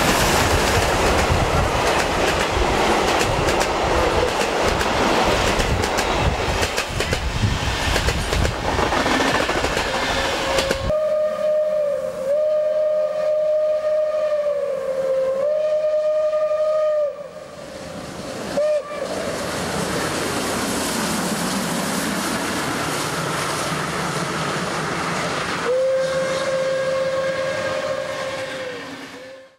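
Steam locomotive 01 1075, a German class 01.10 three-cylinder Pacific, passing close by at full speed, a loud steady rush of train noise for about eleven seconds. Then its steam whistle sounds a long blast that wavers in pitch, a short toot, and, after more running noise, a final blast of about three seconds near the end.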